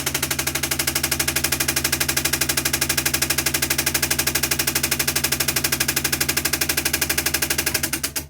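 Electric fan heater running hard: a fast, even mechanical chatter of about a dozen beats a second over a steady electrical hum. It sounds like an engine, and it dies away near the end.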